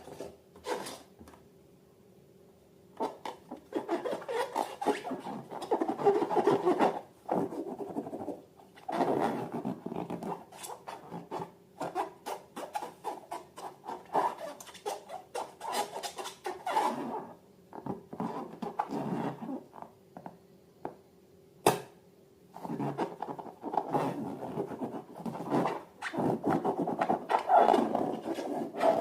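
Hands working slime with rubber balloons: irregular rubbing, squishing and scratching bursts separated by short pauses, with one sharp click about two-thirds through.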